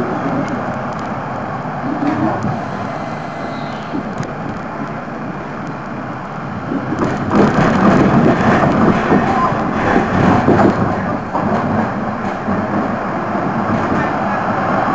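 Wegmann-built tram running along its track, the wheel, rail and motor noise heard from inside the car, growing louder for a few seconds around the middle.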